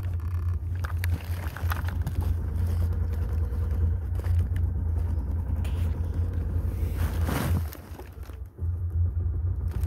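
Club Car golf cart's single-cylinder gas engine running steadily, cold, just after a cold start. Near the end its sound sags for about a second, then picks back up.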